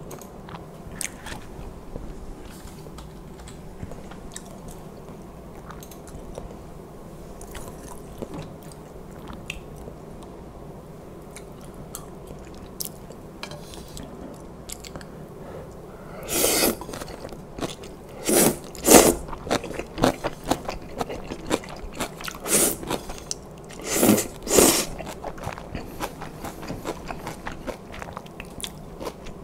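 Close-miked chewing of spicy knife-cut noodle soup, with soft wet clicks of the mouth; past the halfway point come a string of loud slurps as mouthfuls of noodles are sucked in, then more chewing.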